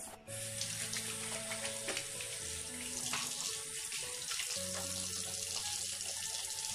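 A chrome sink tap running in a steady stream while hands are washed under it. The water starts just after the beginning.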